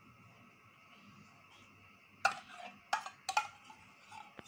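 A spoon clinking sharply against a bowl or container a few times from about two seconds in, as curd is spooned onto flour.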